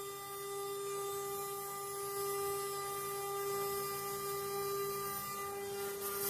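Spindle of a CNC wood-carving router running with a steady hum made of several even tones.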